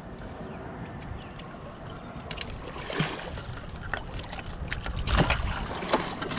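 Water sloshing and splashing around a fishing boat over a steady low rumble, with a few sharp knocks and splashes; the loudest comes about five seconds in.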